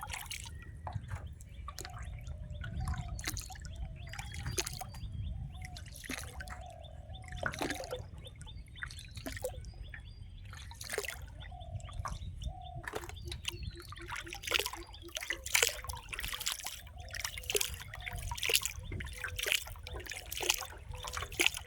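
Water trickling and splashing around a small boat, in many quick, irregular splashes and drips that come thicker toward the end, over a low steady rumble.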